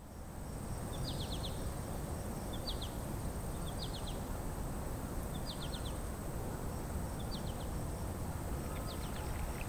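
A bird repeating a short call of three to five quick high notes every second or two, over steady outdoor background noise.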